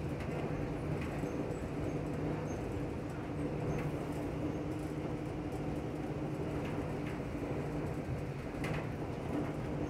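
Running noise of the Amtrak Southwest Chief heard inside a moving passenger car: a steady hum and rumble, with a few faint clicks.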